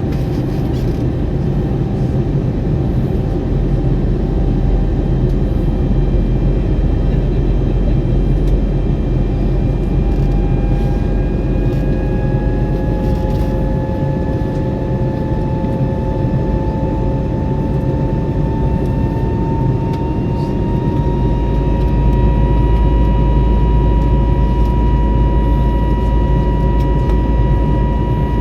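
Airbus A320neo's CFM LEAP-1A jet engines heard from inside the cabin, spooling up for takeoff. A whine climbs slowly in pitch over about ten seconds and then holds, and a deeper rumble comes in as it levels off.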